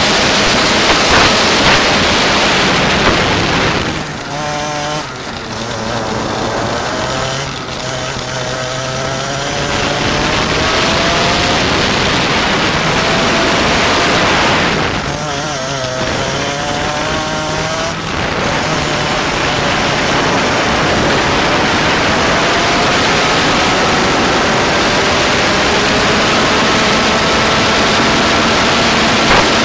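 Go-kart engine running at speed under a loud rushing noise. Twice its pitch drops and wavers as it eases off, then climbs steadily again as it accelerates.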